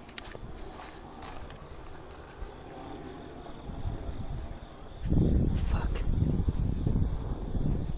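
Insects singing in a steady, unbroken high-pitched drone. About five seconds in, a loud, uneven low rumble starts suddenly and covers it.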